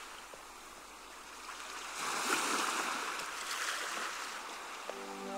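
Ocean surf washing up a beach: a steady rush that swells as a wave comes in about two seconds in, then eases. Music with held notes comes in near the end.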